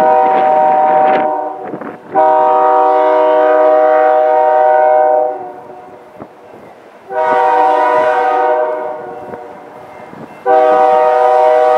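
Diesel locomotive air horn sounding four blasts of a several-note chord, the second the longest at about three seconds, with the last still sounding at the end. It is blown as the train nears a grade crossing.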